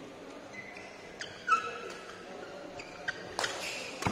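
Badminton rally: shoes squeaking on the synthetic court mat and rackets striking the shuttlecock, several short squeaks and sharp hits, the loudest about one and a half seconds in.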